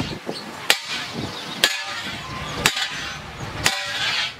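Four hammer blows on a long metal pipe resting on a wooden block, about one a second, each a sharp metallic strike with a brief ring after it.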